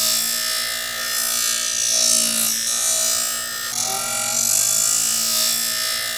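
Bosch electric drill spinning a wire wheel brush against a rusty metal plate to strip the rust: a steady motor whine under a hissing scrub of wire bristles on metal, swelling and easing as the plate is pressed and moved.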